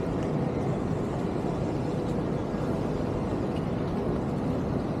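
Steady street ambience: a continuous low rumble of city traffic.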